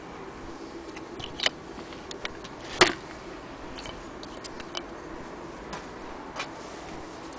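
Scattered clicks and knocks as an antique Singer Model 12K hand-crank sewing machine is handled. Its cast-iron head is set back down on its wooden base and a thread spool is fitted on the spool pin, with one sharper knock about three seconds in.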